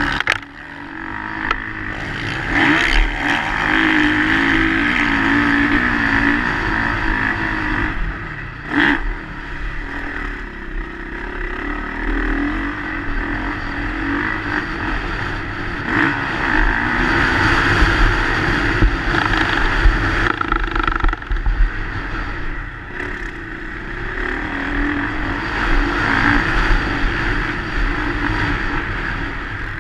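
Motocross bike engine at racing speed, revving up and down through the gears with brief drops in throttle, under heavy wind noise on the camera microphone; a sharp knock just before 9 seconds in.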